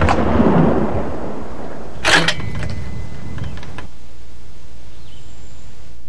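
Blasts of M72 light anti-tank rocket fire: a boom at the start dying away in a rolling rumble, then a second sharp boom with a low rumble about two seconds in.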